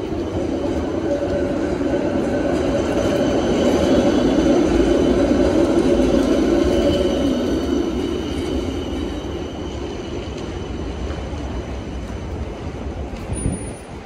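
A rail vehicle passing close by. Its running noise carries a faint steady whine, swells to a peak about five seconds in, then fades. A short sharp knock comes near the end.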